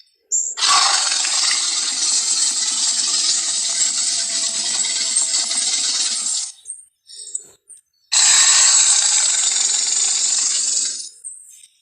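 Movie monster sound effects: two long, harsh, rasping calls, the first about six seconds long and the second about three, with a short gap between them.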